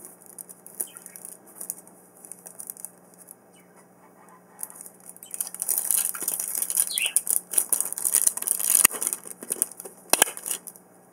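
Crinkling and rustling of plastic and card packaging handled by hand: light scattered handling noises at first, then dense crackling with many small clicks from about five seconds in, stopping shortly before the end. A brief rising squeak sounds about seven seconds in.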